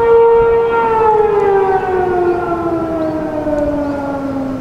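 A.C.A. P-15 rotating warning siren sounding a single steady tone, heard from a distance. About a second in, it begins to wind down, its pitch falling steadily as the rotor slows at the end of its alert signal.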